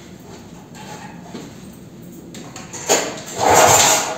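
The homemade mini tractor's small engine being cranked to start: a click about three seconds in, then a loud, brief burst of cranking near the end.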